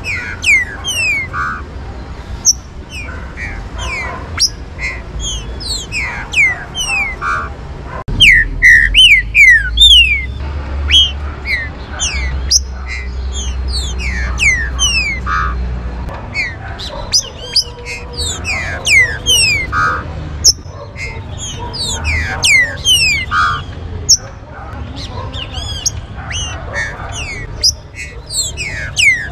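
Birdsong dominated by a caged green-winged saltator (trinca-ferro): a dense run of quick down-slurred whistled notes, often overlapping as more than one bird calls, mixed with short buzzy notes. A low rumble swells for several seconds in the middle.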